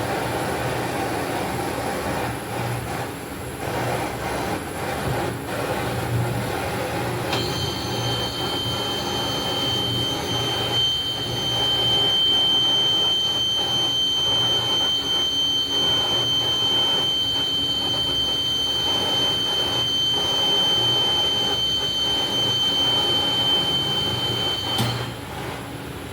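Steady hiss and roar of a jeweller's gas torch heating an old gold chain, over a low hum. A high, steady whistle joins about seven seconds in and cuts off suddenly near the end.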